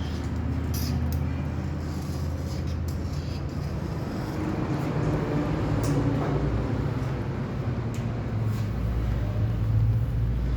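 Lathe running with a steady low hum, with a few light clicks.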